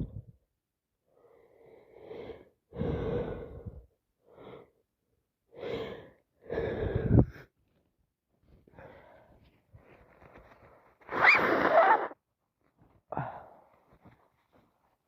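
A person with a head cold, nose congested, making a string of sniffs, gasping in-breaths and wet sneezes, each a separate burst with short pauses between. The loudest and longest burst comes about eleven seconds in.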